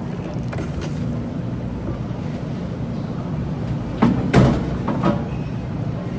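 A steady low hum with a short clatter of knocks about four seconds in and one more knock about a second later.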